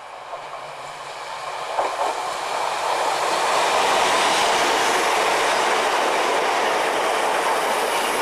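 Diesel multiple unit approaching and passing close by: the rumble of wheels and underfloor engine grows louder over the first few seconds, with a couple of sharp wheel clicks about two seconds in, then holds steady and loud as the coaches go past.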